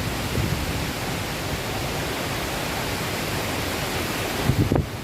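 Heavy rain pouring down in strong wind, a steady rushing hiss. A short, louder low burst comes near the end.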